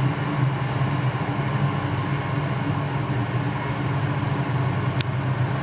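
A column of tanks and other armoured military vehicles driving past, their engines making a steady low drone. There is a brief sharp click about five seconds in.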